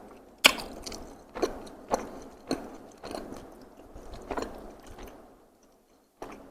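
Close-miked chewing of takoyaki: wet smacks and clicks of the mouth every half second to a second, the loudest about half a second in, dying away to a short near-silent pause before one more click near the end.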